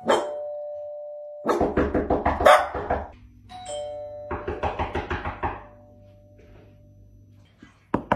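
Two-tone ding-dong doorbell chime rings right at the start and again about three and a half seconds in, each followed by a fast run of sharp, loud sounds. Rapid knocking starts just at the end.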